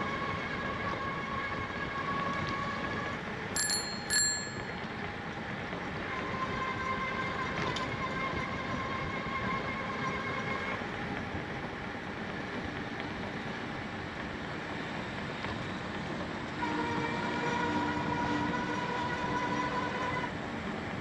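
A distant train horn sounding long, steady blasts of several seconds each, with a bicycle bell rung twice about four seconds in. A steady rushing noise runs underneath.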